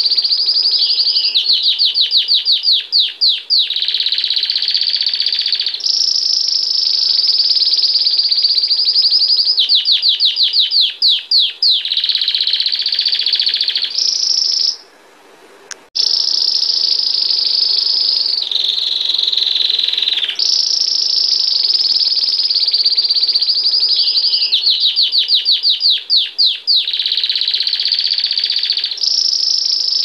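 Belgian canary singing a long, unbroken song of high rolled tours, the bell-like 'campainha' tours bred for in this song, with several runs of quick falling notes in between. The song breaks off for about a second halfway through, then carries on.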